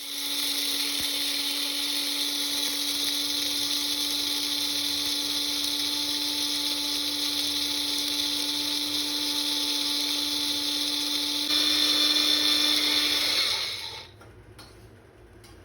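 Wonderchef Nutri Blend mixer grinder's electric motor running at high speed with a steady high whine. It gets louder about eleven seconds in, then winds down and stops a couple of seconds later.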